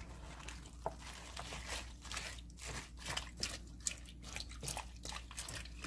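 Wooden spatula stirring sliced radish, napa cabbage and green onions in the liquid of a water kimchi: faint, irregular crunching and squishing as the vegetable pieces shift and rub together.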